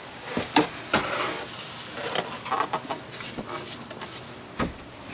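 Handling noises: a run of sharp clicks and knocks with rustling in between, the sharpest knock near the end.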